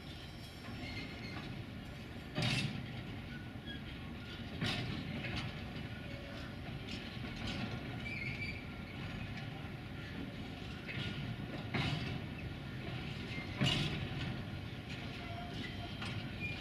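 Empty freight flat wagons rolling slowly past with a steady rumble, their wheels knocking over rail joints every two seconds or so, with a faint wheel squeal.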